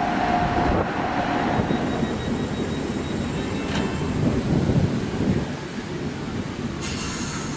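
Electric train running through the station, a low rumble with a steady high whine that stops about a second and a half in. A burst of hiss comes near the end.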